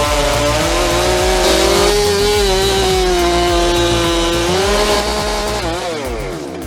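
Two-stroke chainsaw engine running at high revs, easing back and dropping in pitch near the end.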